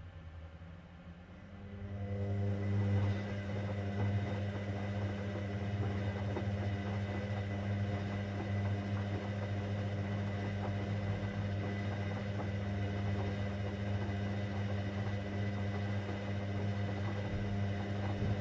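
Hoover Dynamic Next washing machine running on a 60° cotton cycle: a steady low hum starts about a second and a half in and holds even.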